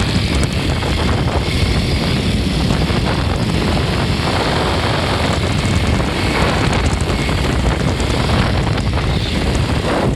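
Fourth-generation Yamaha Cygnus X 125 scooter's single-cylinder engine running steadily, with the abnormal noise its owner hears from about 15 seconds into the recording onward.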